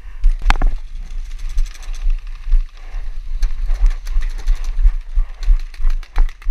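Paintball markers firing in quick strings of sharp pops, with a louder crack about half a second in and another near the end. Under them, the pulsing thump and jostle of a player running with a GoPro strapped on.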